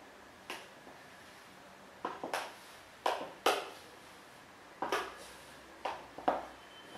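High-heeled stiletto pumps clicking on a hard wooden floor as she walks: about eight sharp heel strikes at an uneven pace, the loudest ones in the middle, with a short echo from a small bare room.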